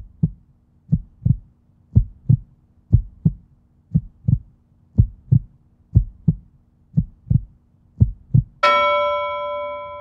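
Heartbeat sound effect: paired lub-dub thumps about once a second, steady and even. Near the end a single bell strike rings out and slowly fades.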